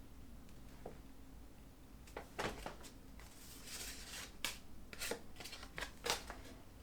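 Paper swatch cards being handled: a string of short, sharp rustles and clicks from about two seconds in until shortly before the end, over a faint room hum.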